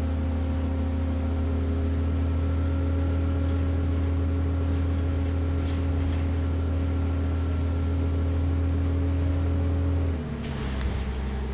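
Steady low hum of a city transit bus's engine and drivetrain, heard from inside the cabin while the bus is under way, over a steady hiss. About ten seconds in, the note drops suddenly to a lower, quieter hum.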